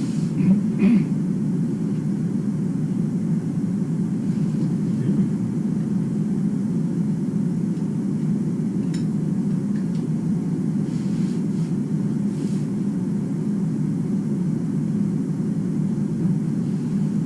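Steady low rumbling noise, like a fan or ventilation, with a few faint clicks or taps.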